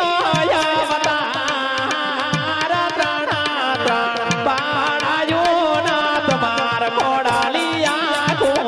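Live folk music: a voice singing a melody into a microphone over a steady tabla beat.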